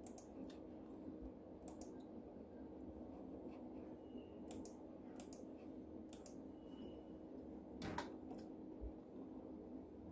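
Faint, irregular clicks of a computer mouse and keyboard, about a dozen over the stretch, over a steady low hum.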